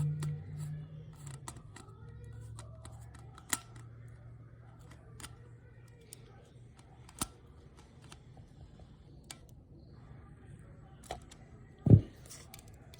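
A Phillips screwdriver turning a wire terminal screw on fire alarm hardware, giving scattered small clicks and taps of metal and plastic, with one louder thump near the end.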